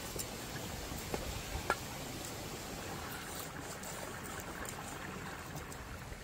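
Steady rush of running stream water, with a few small clicks in the first two seconds.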